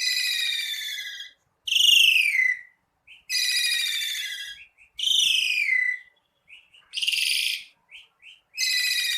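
Asian pied starling (jalak suren) singing: about six whistled phrases, each around a second long and sliding downward in pitch, with short chips in the gaps between them.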